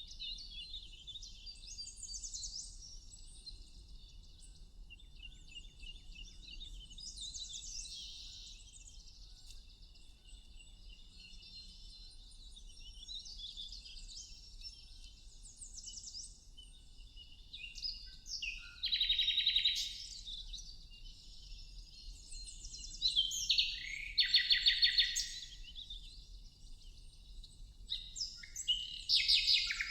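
Songbirds chirping and singing in short, overlapping, quickly repeated phrases over a faint steady background of high chirping. Louder, nearer songs come in about two-thirds of the way through and again near the end.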